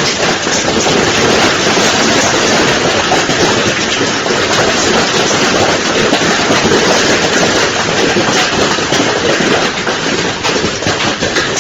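Heavy hailstorm: a dense, steady, loud patter of countless hailstones striking hard surfaces, with no let-up.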